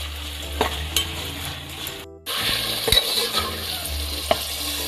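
Raw minced mutton frying and sizzling in hot oil in a metal pot, stirred with a metal spoon that scrapes and clicks against the pot now and then. The sound drops out for a moment about two seconds in.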